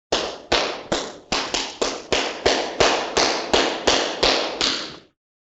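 Sound effect of about fourteen sharp taps in a quick, fairly even run, roughly three a second. Each tap dies away quickly, and they stop about five seconds in.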